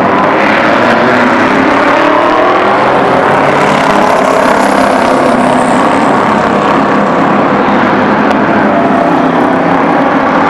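Endurance racing cars passing at speed on the straight: a loud, continuous mix of engines whose notes rise and fall as each car goes by.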